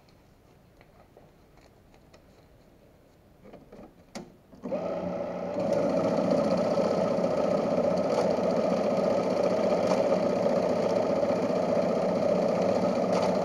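Ribao BCS-150 banknote counting machine running a stack of notes through its rollers at speed: a dense, steady mechanical whirring. It starts about five seconds in, after some light handling clicks, and runs on steadily.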